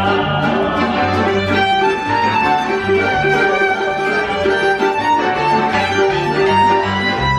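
Music led by a violin over a repeating bass line.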